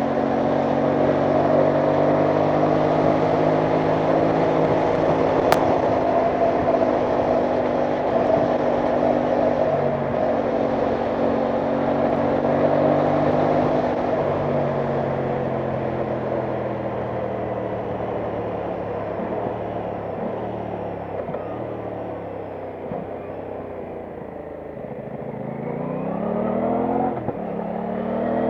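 Aprilia Tuono 660 Factory's parallel-twin engine under way: it holds a steady pitch for the first half, falls away as the bike slows through the middle, then rises again in sweeps as it accelerates near the end.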